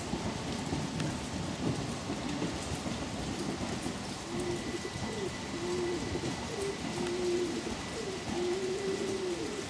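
Steady rain falling, with a pigeon cooing in short, low notes repeated several times through the second half.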